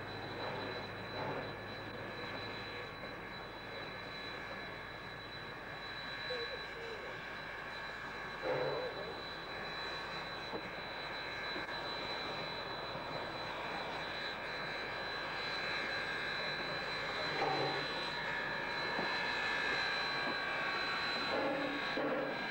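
Steam locomotive 934 and its carriages arriving slowly, a steady rumble with no beat that grows louder as the engine draws close.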